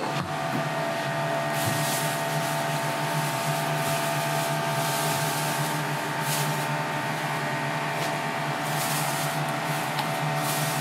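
Steady mechanical hum of kitchen equipment, holding several fixed tones, with short hissing bursts three times.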